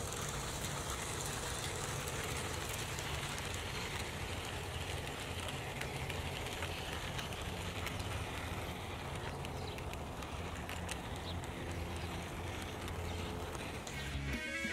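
Small electric model train running along its track: a steady motor hum and wheel rumble with scattered faint clicks.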